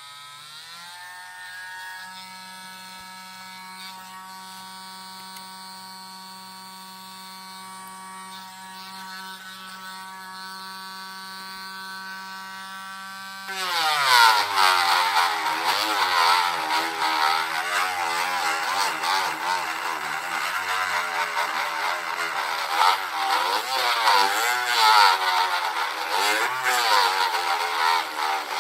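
Mazda RX-7's rotary engine starting and idling steadily. About halfway through it turns much louder, its pitch rising and falling repeatedly as it is revved.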